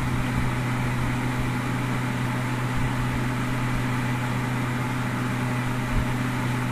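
Havells I-Cool 175 mm personal fan running at high speed: a steady motor hum with an even rush of air from the blades.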